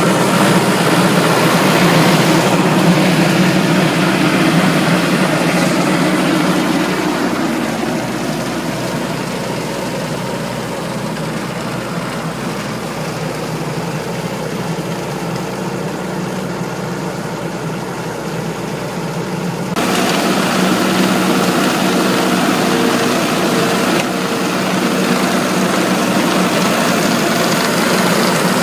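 Engine of a Pattenden Falcon Mk III cider apple harvester running steadily. About two-thirds of the way through the sound suddenly gets louder and hissier, and it stays that way.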